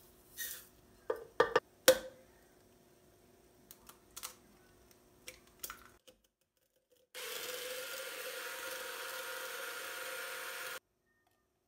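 A few light knocks and clicks, then a small electric kitchen appliance motor running steadily for about three and a half seconds before stopping abruptly.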